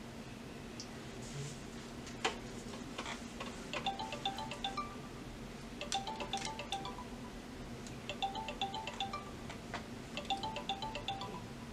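Smartphone video call ringing out: a short chiming phrase of quick notes, repeating about every two seconds and starting about four seconds in, after a single click about two seconds in.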